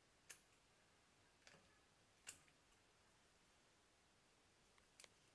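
A few faint, sharp snips of dissecting scissors cutting into a chicken's body wall and rib cage, the loudest about two seconds in, with near silence between them.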